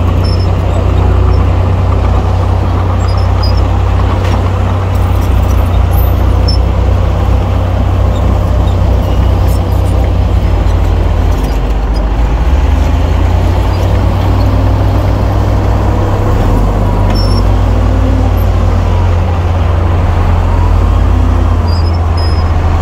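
Heavy diesel earthmoving machinery running steadily under load, a deep continuous engine rumble whose note shifts a little about halfway through.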